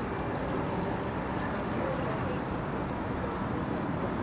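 Steady outdoor background noise, an even haze with no clear single source, with faint voices in the distance.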